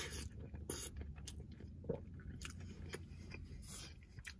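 Close-up chewing of a mouthful of poutine (fries, cheese curds and gravy), with a few short clicks, over a steady low hum.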